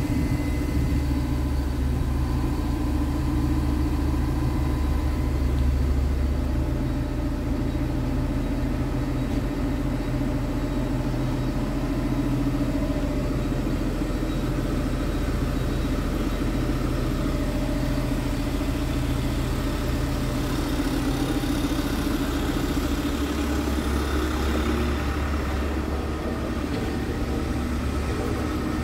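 Scania R truck's diesel engine idling steadily, a continuous low hum.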